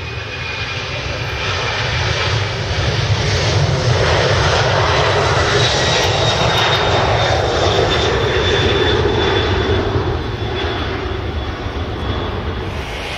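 Boeing 767 twin-jet airliner at takeoff thrust, its engines growing louder over the first few seconds as it rolls and lifts off, then easing near the end. A high whine and a lower band both sink slowly in pitch as the aircraft passes.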